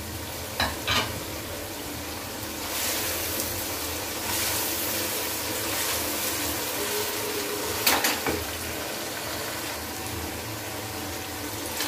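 Tomato and onion sauce sizzling in oil in a nonstick pan while a wooden spoon stirs it, with a few light knocks of the spoon against the pan, twice near the start and once more later.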